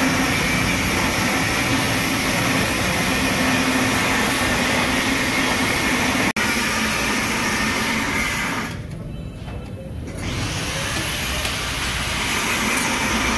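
Gas welding torch hissing steadily while its flame heats and welds a steel motorcycle exhaust pipe joint. The hiss thins out for a moment about nine seconds in, then comes back.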